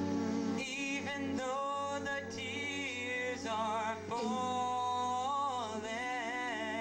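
Male a cappella group singing a slow song in close harmony into microphones, with a steady low bass note under long held notes that waver with vibrato.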